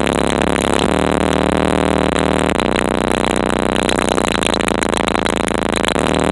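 Competition car audio system playing bass-heavy music at very high volume, heard from inside the car's cabin. The sound is distorted and overloaded, with the low notes shifting every few seconds.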